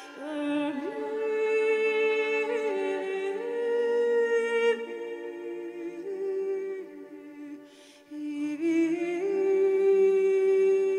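A woman singing wordlessly, close to humming, in long held notes that step and slide between pitches. There are two loud phrases: one from the start to about five seconds, and another from about eight seconds in, with softer notes between them.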